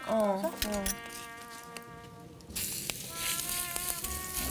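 Grated-potato pancake batter sizzling in hot oil on a cast-iron cauldron lid, the hiss starting a little past halfway through, under a steady buzzing tone.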